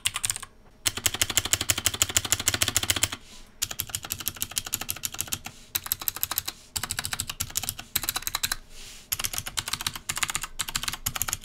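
Fast typing on a Krux Neo Pro 60% mechanical keyboard with clicky Gateron Blue switches: a dense run of sharp clicks, broken by short pauses a few times, with no spring ping audible.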